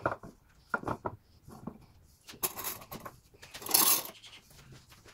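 Hardwood strips knocking against each other and the bench as they are set in place on pipe clamps. Then come two louder scraping rubs, the second the loudest, as the strips are pushed together and a pipe clamp jaw is slid up against the block.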